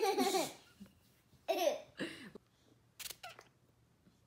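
Children giggling and letting out two short squeals that fall in pitch, followed by a couple of sharp clicks about three seconds in.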